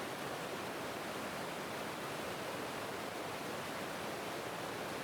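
Small waterfall rushing, a steady even hiss of running water.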